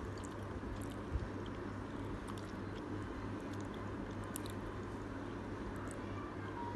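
A person chewing soft udon noodles with the mouth closed: small wet mouth clicks scattered over a steady low hum, with one louder knock about a second in.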